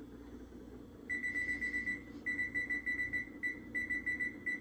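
Electronic oven timer beeping in a high single tone: one long beep about a second in, then a rapid run of short beeps as the timer is set to about 55 minutes. A steady low hum runs underneath.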